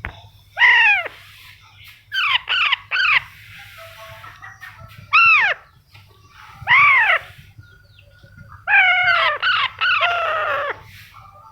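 Baby Alexandrine parrot calling: loud, harsh squawks that each arch up and fall in pitch, given singly or in quick runs of two to four with short pauses between.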